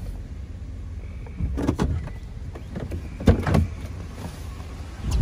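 Inside a pickup truck's cab: a steady low rumble of the truck, with loud thumps and rubs about a second and a half in and again, loudest, a little past three seconds, and an electric power window starting to wind down near the end.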